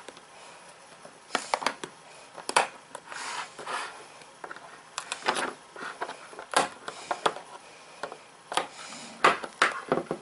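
Screwdriver tip prying and scraping around the edge of a Western Digital hard drive's metal top cover, a string of irregular sharp clicks and scrapes. The lid is held by its dust gasket and is being worked loose.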